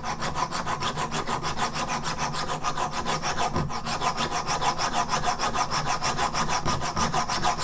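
A small hand file rasping back and forth through a drilled stud hole in the finned metal cylinder of a Hoglet V-twin model engine, in rapid, even strokes, several a second. The hole is being filed out by hand to correct a drill that wandered off line.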